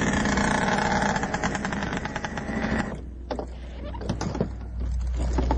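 Off-road vehicle engine running loud, cutting off abruptly about three seconds in. A few scattered knocks follow, and a low steady hum comes in near the end.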